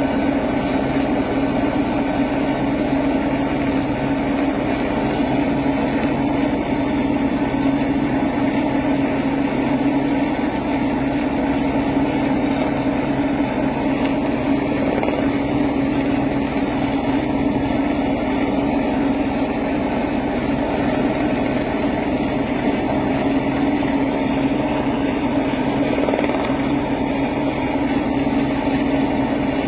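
Helicopter running steadily, a constant engine and rotor sound with a strong steady tone and no change in level.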